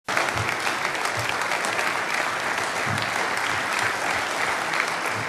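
A large audience applauding, many hands clapping in a dense, steady patter.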